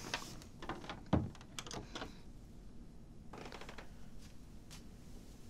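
Soft fabric rustling and small handling clicks as a shirt is handled, with one dull knock about a second in and a few fainter rustles later.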